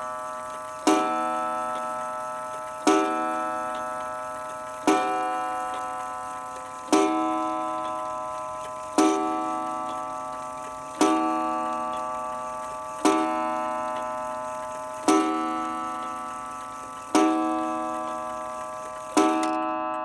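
Old mantel clock striking on its metal gong rod: a hammer hits the rod ten times, about every two seconds. Each strike rings out with several tones and fades slowly until the next.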